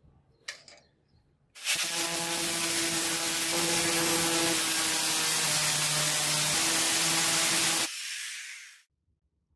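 A motor-driven workshop tool starts about one and a half seconds in and runs with a loud hiss over a steady hum for about six seconds. It then stops and fades out over about a second.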